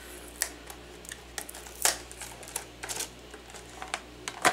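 Hands opening and handling a small card reader's cardboard box and plastic insert: scattered clicks, crackles and rustles of packaging, the sharpest about two seconds in and at the very end.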